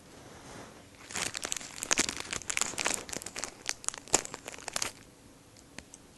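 Crinkling, crackling rustle, like paper or dry bedding being moved about, starting about a second in and lasting about four seconds.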